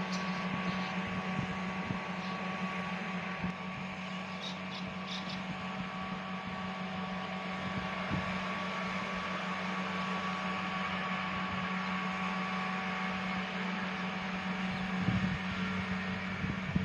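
Rice harvesting machine running with a steady engine drone and hum.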